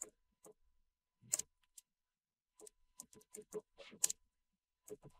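Typing on a computer keyboard: irregular keystroke clicks, a few at first, then a quicker run of keys from about two and a half to four seconds in.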